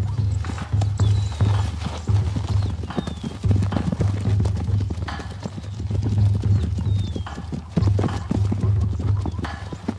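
Zebra stallions fighting: repeated hoof impacts and scuffling, with a few high calls, over music with a pulsing low beat.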